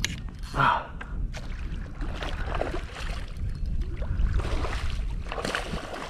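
A hooked redfish thrashing and splashing at the water's surface close beside a kayak, in irregular bursts, over a steady rumble of wind on the microphone.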